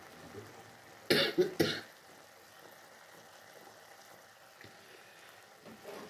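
A person coughs in a quick short run about a second in, over a faint steady hiss.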